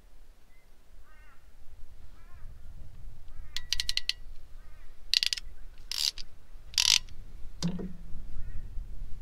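A hand ratchet clicking as an air-conditioning hose fitting is tightened: a quick run of clicks a little over three seconds in, then three short bursts of rapid clicking about a second apart, followed by a dull knock.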